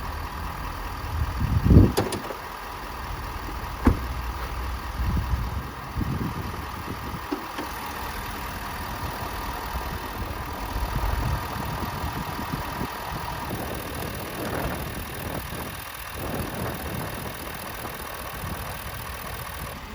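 Viair portable 12-volt air compressor running steadily as it inflates a freshly plugged RV tire, its whine fading about two-thirds of the way through. A loud knock about two seconds in and a sharp click a couple of seconds later.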